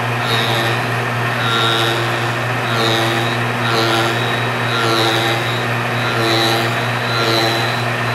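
The fly cutter on a rose engine ornamental lathe is running and cutting flutes into ash wood. A steady low motor hum runs under a higher whine that swells and fades about once a second as the cutter bites into the wood.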